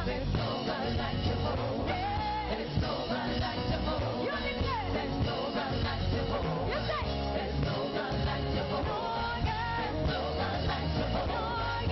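Praise and worship music: singing over a live band with steady bass.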